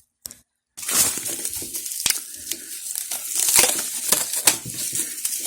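Packaging being handled while a rifle scope is unpacked: plastic and cardboard crinkling and rustling with scattered small clicks. It starts just under a second in, and there is one sharper click about two seconds in.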